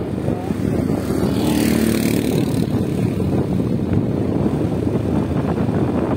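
Steady engine and road noise of a vehicle driving along a paved road, with a brief hiss of rushing air about a second and a half in.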